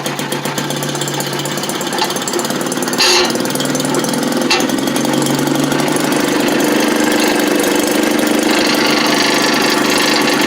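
Maytag 72 DA engine-driven washing machine running: its small gasoline engine runs with a fast, even putter and a steady hum. Brief rattly surges come about two, three and four and a half seconds in, and again near the end.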